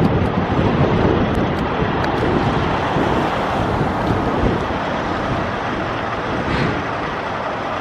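Strong wind buffeting the camera's microphone: a steady, loud rumbling rush.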